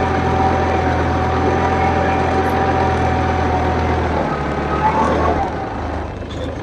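Kubota compact tractor's diesel engine running steadily under load as it pulls a ridger plough through soil, with a steady whine over the engine. About four seconds in the whine fades and the engine note shifts and eases a little.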